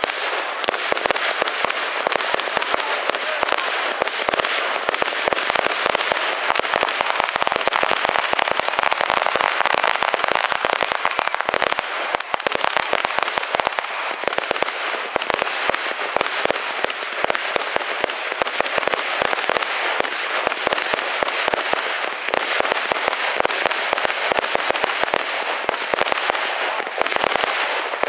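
Aerial fireworks going off in a dense, unbroken run of bangs and crackling.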